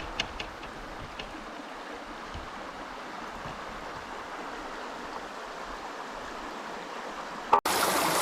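Small river's water running steadily, an even rushing with a few faint clicks in the first second. Near the end it cuts abruptly to a louder, closer rush of water.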